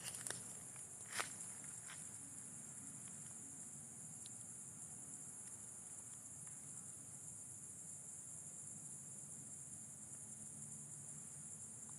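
Steady high-pitched chorus of night insects such as crickets. A few soft clicks come at the start, and a sharper single click about a second in.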